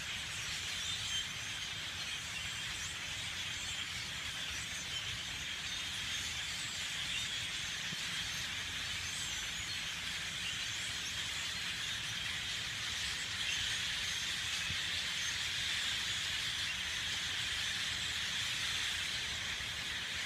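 A huge flock of birds in trees, all calling at once: a loud, dense, steady chatter of countless overlapping calls.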